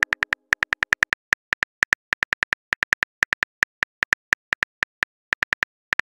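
Keyboard typing clicks from a texting app's sound effect: a quick, uneven run of short, sharp taps, about six a second, as a message is typed out letter by letter.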